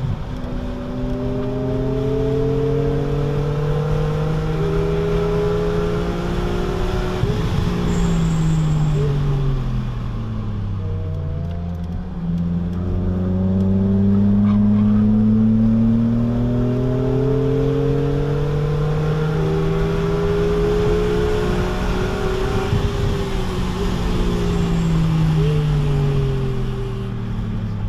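BMW Z4 M's S54 straight-six, muffler deleted, heard from inside the cabin on track. It climbs steadily in pitch under power, drops sharply about ten seconds in as the car slows for a corner, pulls up through the revs again, and falls once more near the end.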